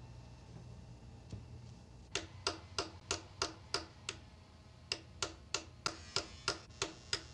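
Steel pick tapping and chipping at the plaster and rock matrix around a fossil bone: sharp, even taps about three a second, starting about two seconds in, with a short pause in the middle.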